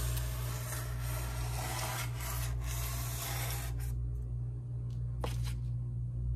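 A sharp knife sawing through spray foam insulation between wall studs: a steady rasping scrape that stops about four seconds in, then one short scrape a little later.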